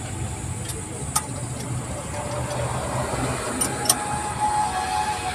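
Spanner clinking against the bolts of a Leyland truck's clutch pressure plate: a few sharp metal taps, one about a second in and another near four seconds, over a steady low rumble of engine noise.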